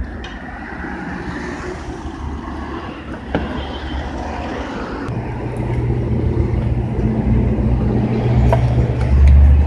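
A motor vehicle's engine running, its low hum setting in about halfway through and growing louder towards the end, over a steady noisy background; a single sharp click about three seconds in.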